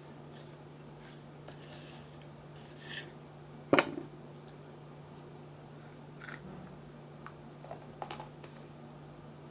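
Baked clay of a small clay lamp (diya) being bitten and crunched: one sharp, loud crunch a little under four seconds in, with a few fainter crunches and clicks spread around it.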